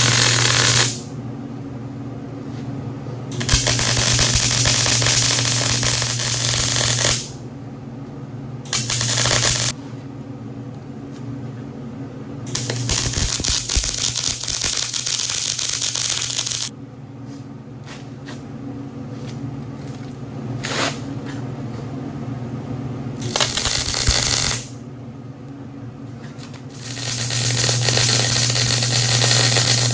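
Wire-feed welder arc crackling and sizzling in a series of short welds: about six bursts of one to four seconds each, with a steady low hum underneath between them.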